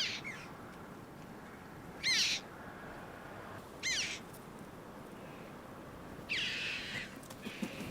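Red-billed choughs calling: short, high, arching calls repeated about every two seconds, four in all, the last one longer and rougher.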